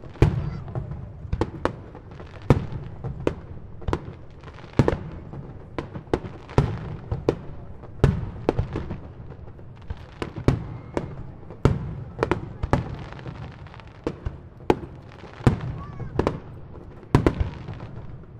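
Aerial fireworks shells bursting in quick succession, more than one sharp bang a second, each trailing off into a short rumble.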